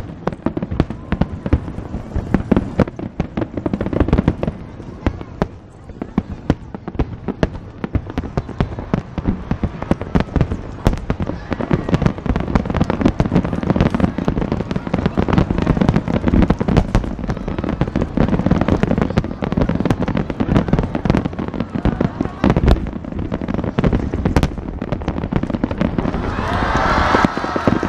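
Aerial firework shells bursting in a dense, rapid barrage: a continuous stream of sharp bangs and booms that grows louder and denser near the end as the finale fills the sky.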